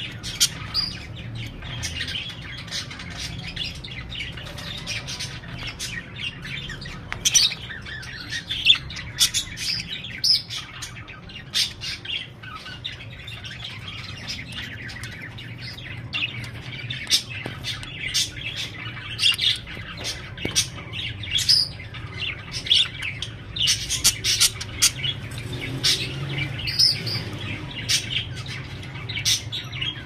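Budgerigars chirping and chattering, with many short, sharp calls in quick succession throughout, over a steady low hum.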